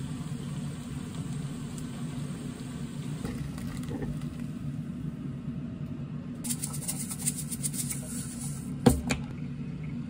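Steady low hum of an indoor appliance, with light crisp rustling and clinking of dishes being handled. Near the end a ceramic dish gives one sharp knock against a stone countertop.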